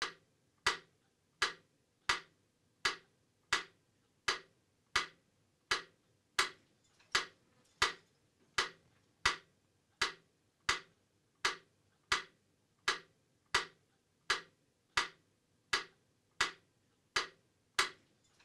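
Mechanical pyramid metronome ticking steadily, about 85 beats a minute.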